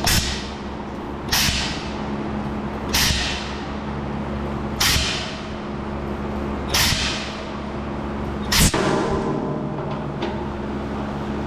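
Hand spray bottle misting soapy water onto fuel-tank welds for a leak check: six short hissing sprays about every two seconds, over a steady low hum.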